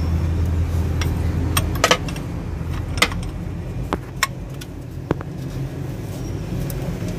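Sharp metallic clinks and taps, about five of them a second or so apart, from a hand tool or fingers working on the diesel engine's injector fuel lines and fittings. Under them is a steady low rumble that drops in level about two seconds in.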